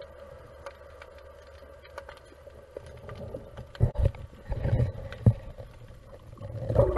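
Muffled underwater sound picked up through a camera housing: a faint steady hum with small clicks, then from about halfway a series of low thumps of water pushing against the housing as the diver swims up toward the surface, with a gurgling rush near the end.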